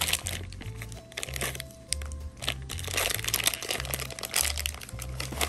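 Toy blind-bag packaging crinkling and rustling in short spells as it is torn open by hand, over background music with a steady stepping bass line.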